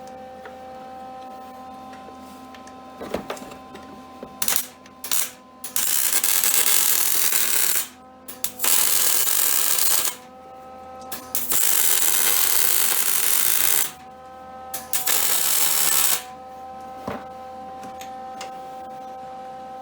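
Electric arc welding on a quad's frame: a series of hissing weld bursts, each about half a second to two and a half seconds long with short pauses between, over a steady hum.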